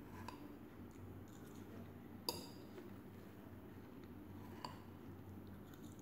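Metal fork clinking against a plate while spearing watermelon pieces: a few sharp clinks, the loudest a little after two seconds in, over a faint room hum.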